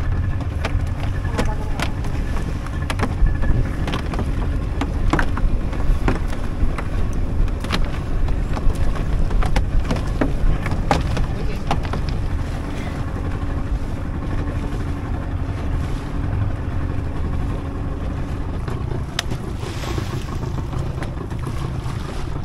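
A boat's motor running steadily with a low rumble, with scattered short knocks over it.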